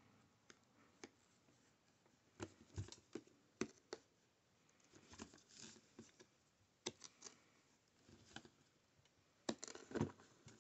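Scissors snipping and thin plastic wrap crinkling as the wrap is cut off a plastic coin tube: faint scattered clicks and short rustles, with a busier cluster near the end.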